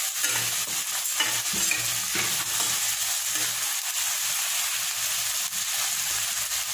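Chopped onions sizzling steadily in hot oil in a kadhai, stirred with a spatula, with a few faint scrapes of the spatula against the pan in the first couple of seconds.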